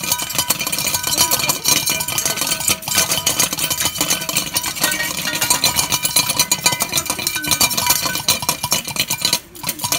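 A fox eating from a metal feed bowl fixed to a wire cage, the bowl clattering, clinking and ringing against the mesh with dense rapid scraping and rattling, easing off briefly near the end.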